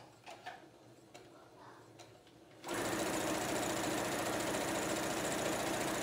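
Brother electric sewing machine starting up a little under halfway in and running steadily as it stitches a hem. Before it starts there are a few faint clicks.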